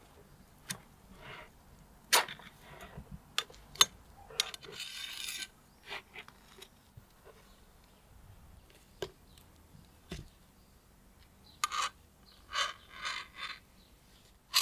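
A cleaver blade scraping down metal skewers as grilled vegetables are pushed off them, with sharp metallic clinks of the skewers in between. The scrapes come as several short rasps, two of the longest about five seconds in and twelve to thirteen seconds in.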